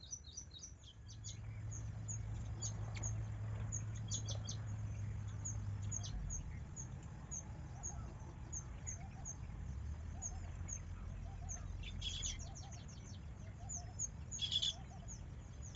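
Small birds chirping: many short, high, repeated chirps, coming thick in two quick flurries near the end. A steady low rumble runs beneath them.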